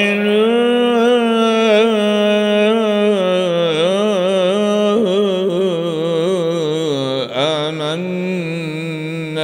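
A man's voice reciting the Qur'an in a slow, melodic chant, holding long drawn-out notes with ornamented, wavering pitch and barely pausing for breath.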